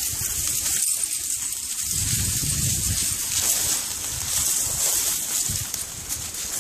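Dry weeds and brush rustling and crackling underfoot as someone walks through a field, with many small snaps of dry stems.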